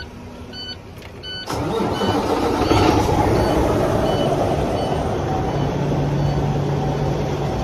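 Semi-truck diesel engine starting suddenly about a second and a half in, then running steadily at idle. Before it catches, the dash gives short repeated warning beeps with the ignition on.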